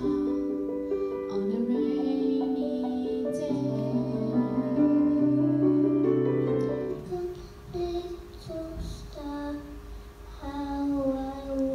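A girl singing into a microphone over instrumental backing music; about seven seconds in it changes to a young child singing alone, without accompaniment.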